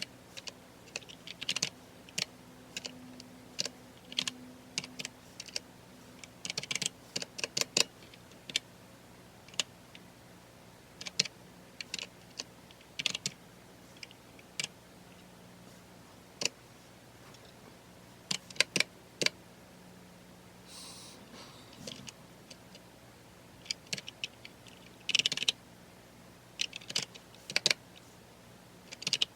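Typing on a computer keyboard: irregular keystroke clicks, in quick runs broken by short pauses.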